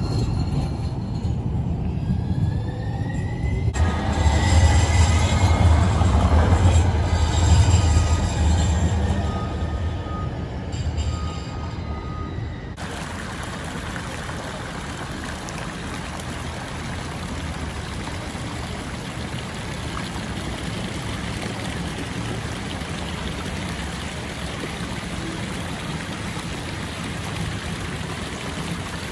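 Train rumbling past with wheels squealing, cutting off suddenly about halfway through to a steady rushing noise.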